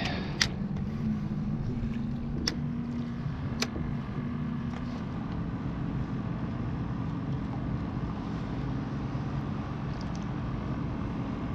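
A boat motor running with a steady low hum, strongest for the first few seconds and then easing, with a few sharp clicks early on from the fishing gear.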